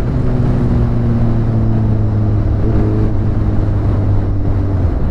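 2010 Suzuki GSX-R 750's inline-four engine, breathing through an Akrapovic exhaust, running at low steady revs while cruising, its pitch drifting slowly down, with wind noise on the microphone. The engine note dips briefly near the end.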